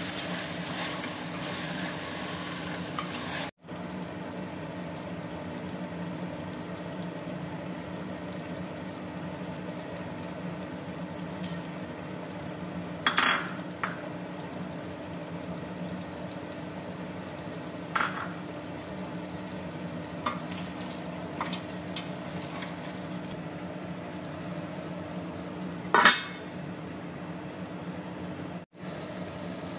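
Meat and curd masala sizzling in a stainless steel pot as a metal spoon stirs it, over a steady hum. The spoon or lid clanks sharply against the pot three times, the loudest near the end.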